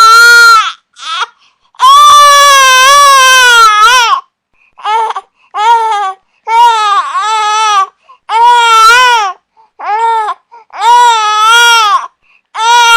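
An infant crying in a series of loud, high-pitched wails, each rising and falling in pitch and broken by short gasping pauses for breath; the longest wail lasts about two seconds.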